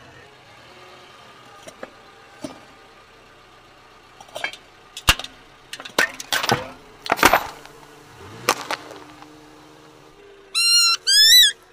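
Car tyre rolling over aluminium soda cans and crushing them, with a run of sharp pops and crunches as the cans burst open, over a faint low engine hum. Near the end come two short high-pitched squeaks from rubber squeaky toys squeezed under the tyre.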